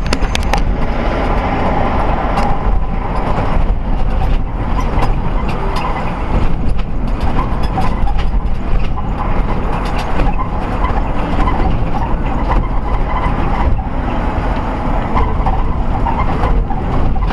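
Steady road and engine noise of a car driving at city speed, heard from inside the cabin, with scattered small clicks and rattles.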